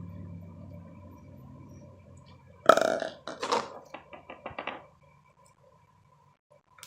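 Slime being squeezed: one loud burp-like squelch, then a run of smaller squelches and wet pops as air pockets burst.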